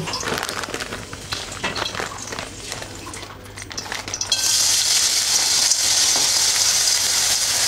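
Mixed vegetables poured from a bag into a hot, oiled wok on a gas hob: a few seconds of small rustles and clicks, then about four seconds in a sudden, steady sizzle as the vegetables hit the oil and keep frying.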